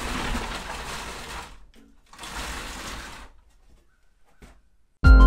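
Plywood tool carousel, loaded with benchtop tools, turning on roller ball bearings: a rolling rumble, twice, the first lasting about a second and a half and the second about a second, then a short click. Music starts near the end.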